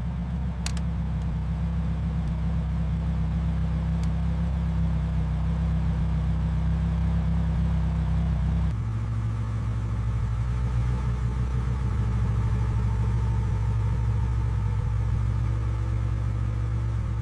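Ferrari V12 engine running at steady revs, a low, even drone that shifts abruptly to a different steady note about nine seconds in.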